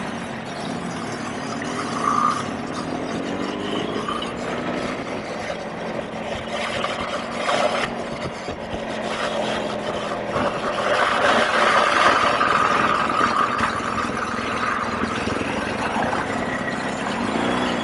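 BMW R1200GSA's flat-twin boxer engine running, its pitch rising and falling with the throttle, over a steady rush of road and wind noise.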